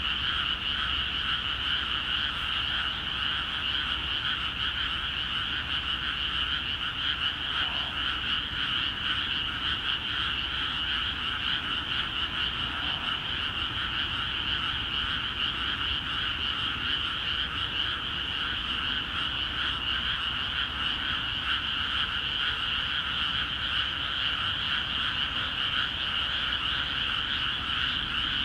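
Frogs in flooded rice paddies calling in a dense chorus, a continuous croaking with no pause.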